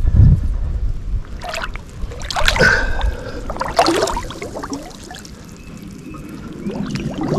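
Creek water splashing and sloshing irregularly around a person wading deep through it, with a low rumble on the microphone.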